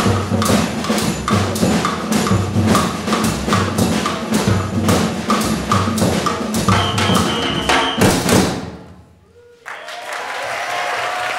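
A school orchestra of strings with drum kit and hand drums plays a piece over a steady percussion beat, ending on a final hit about eight seconds in. After a brief hush, the audience breaks into applause.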